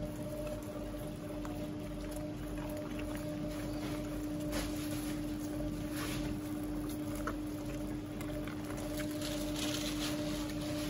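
A steady machine hum, one fairly low tone with a fainter one an octave above, under scattered light clicks and knocks.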